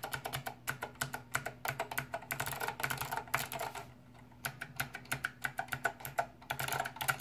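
Typing on a Monterey K2AX keyboard with SKCM Blue Alps switches: fast runs of sharp, clicky keystrokes, broken by a short pause about four seconds in and another near the end.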